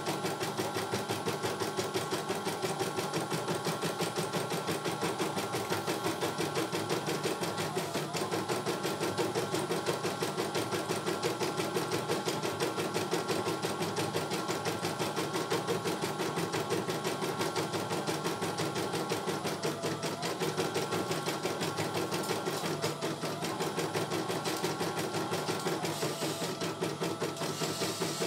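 CNY E900 computerized embroidery machine stitching a design on a test run, its needle mechanism running in a rapid, steady rhythm.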